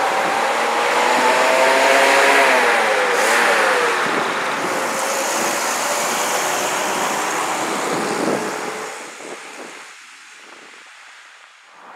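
Vintage bonneted coach driving past close by and pulling away, its engine note climbing and then dropping about three to four seconds in, the engine and road noise fading away after about eight seconds. A car also goes by at the start.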